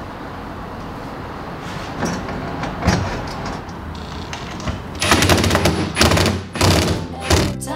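Cordless impact driver tightening a screw through a kayak hull, firing in about four short loud bursts from about five seconds in, after a few faint knocks of the tool being set against the screw head.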